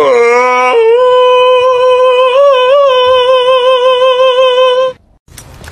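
A man and a husky howling together in one long, high held note with a slight waver. A lower voice drops out under a second in, and the note cuts off abruptly near the end.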